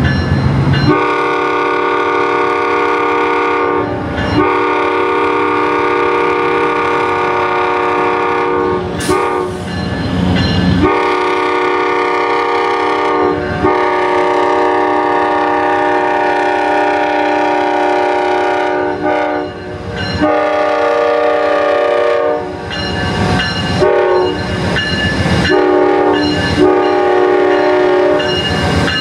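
Amtrak GE P42DC diesel locomotive sounding its multi-tone air horn in a long series of blasts, with brief breaks between them, as it approaches and reaches the platform.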